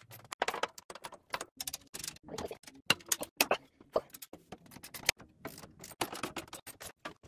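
Quick, irregular metallic clicks and taps as a spanner works a nut and bolt on the steel frame of a Kity 636 planer/thicknesser.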